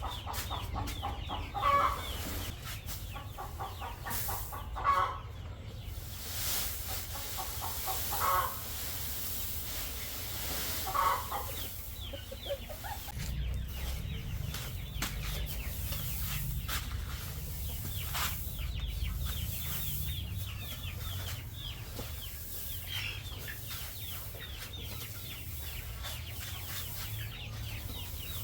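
A flock of young Aseel chicks peeping and chirping continuously, with a louder, more cluck-like call about every three seconds in the first half.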